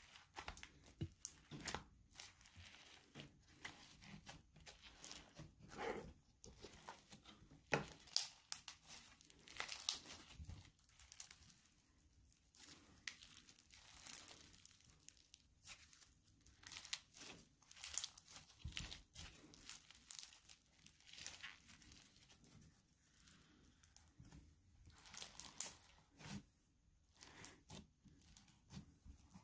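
Slime being squished, poked and stretched by hand, giving a run of irregular crackling and popping clicks.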